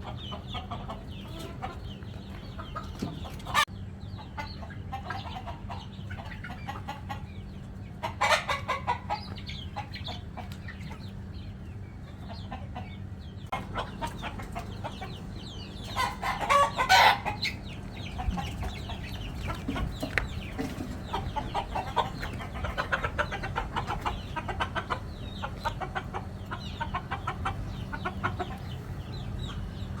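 A flock of hens and roosters clucking and calling without pause, with a louder outburst of calls about eight seconds in and the loudest one about sixteen seconds in. A steady low hum runs underneath.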